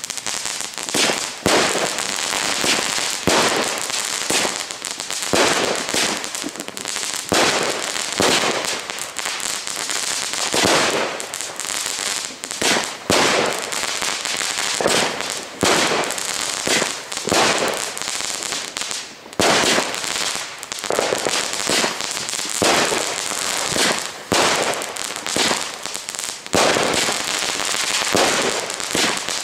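Super Crackling Rainbow miniature fireworks cake firing its shots in quick succession, each one bursting into a dense crackle. Louder pops come about once a second over a continuous crackling.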